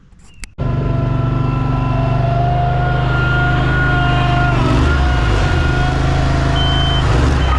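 Heavy diesel equipment, such as a paving truck or machine, starts up loudly and runs steadily. Near the end a backup alarm begins its repeating high beep.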